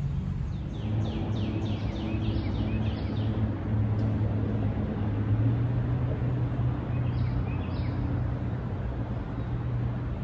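Steady hum of road traffic from a nearby highway. A bird calls over it, with a run of quick descending notes in the first few seconds and a couple more around the eight-second mark.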